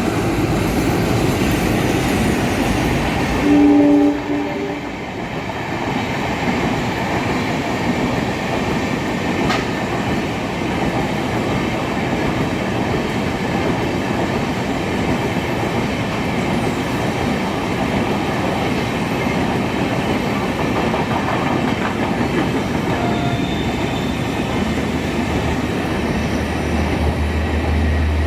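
A train running past with a steady rumble of wheels on rails, and a short horn blast of about a second, about four seconds in.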